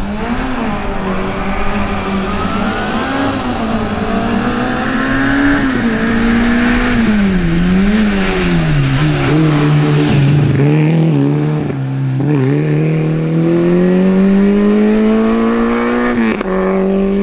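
Small hatchback race car's engine accelerating hard from the start, its note rising and then dropping back at each gear change. Midway it falls lower as the car eases off, then it pulls steadily higher again.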